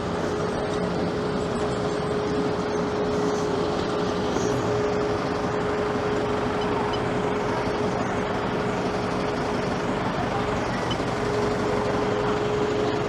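Steady city street noise of traffic and wind, with a constant whine that drops out briefly about ten seconds in.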